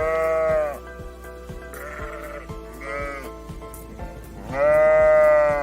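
A farm animal bleating, four calls: a long one at the start, two shorter, fainter ones in the middle, and the longest and loudest near the end. Background music with a steady beat plays underneath.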